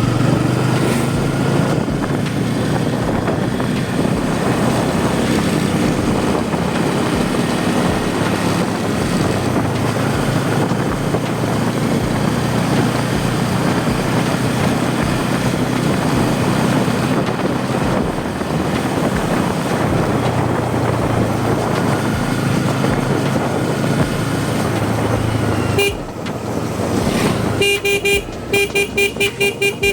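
Bajaj Pulsar N250's single-cylinder engine running steadily under way, with road and wind noise. Near the end the engine note drops and a rapidly pulsing electronic tone starts, beeping several times a second.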